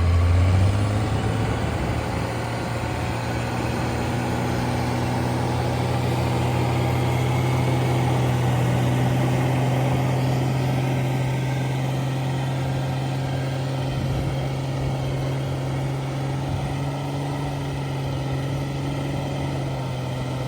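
An old pickup truck's engine revs up within the first second and is then held at a steady high speed while the truck spins its tyres in deep snow in two-wheel drive, trying to drive out of the drift.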